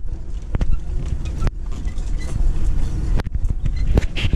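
An off-road car driving over rough, bumpy dirt, heard from inside the cabin. The engine runs low and steady, and the body and suspension knock and rattle over the bumps, with a few sharp knocks.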